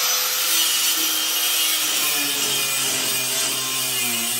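Handheld grinder with a cut-off wheel running under load, cutting through metal guard stock. It makes a steady, harsh grinding noise, and the motor's pitch sags a little about two seconds in as the wheel bites.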